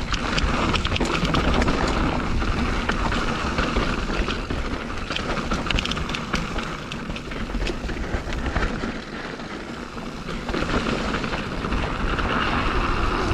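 Mountain bike riding a dirt trail: wind rushing over the camera microphone, tyres rolling over dirt, and the bike clattering with many quick clicks and rattles.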